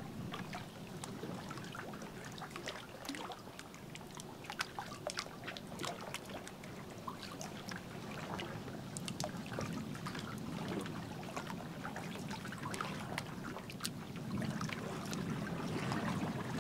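Canoe being paddled: water trickling and dripping off the paddle blade and lapping against the hull, with many small drips and splashes throughout, a little louder near the end.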